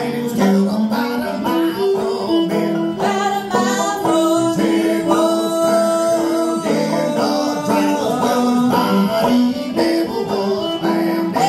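Fiddle and banjo playing an old-time/bluegrass tune together: the fiddle bows long held notes over the banjo's plucked picking.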